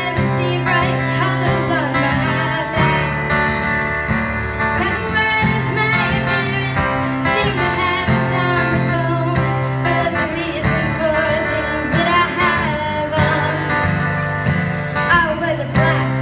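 A young girl singing into a microphone, accompanied by an acoustic guitar played through an amplifier, with a steady rhythm of low notes under her melody.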